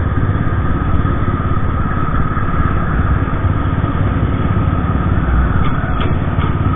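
Motorcycle engine running steadily at highway speed, heard from the rider's seat.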